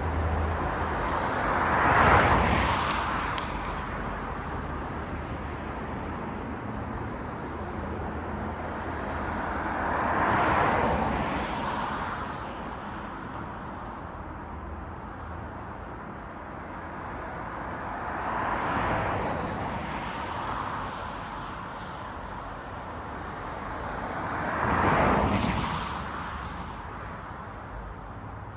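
City road traffic: vehicles pass one at a time, each swelling up and fading away, four times in all, over a steady low traffic hum. The first pass-by, about two seconds in, is the loudest.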